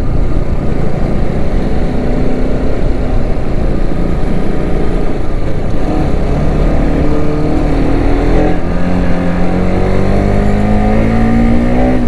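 Motorcycle engine running under way with wind and road noise on the microphone; about eight seconds in, the engine note starts rising steadily as the bike accelerates.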